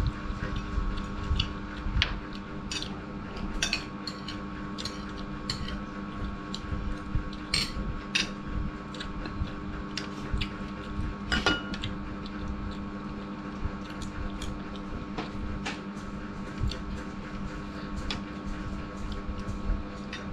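A metal spoon and fork clinking irregularly against a soup bowl during eating, with one louder clink about halfway through, along with chewing. A steady hum runs underneath.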